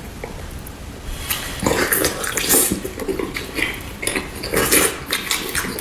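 Close-up wet chewing and lip-smacking on braised pork, with the squelch of gloved hands tearing the meat. A dense run of short clicks and smacks starts about a second in.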